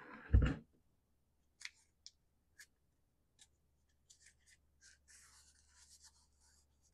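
A single dull thump about half a second in, then faint scattered scratches, clicks and rubbing as fingers work a dirt-packed fabric pre-filter off a chainsaw air filter.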